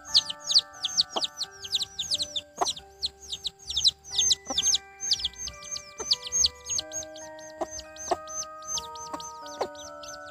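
Young chicks peeping continuously, a quick run of short, falling high-pitched peeps several times a second, over background music of held melodic notes.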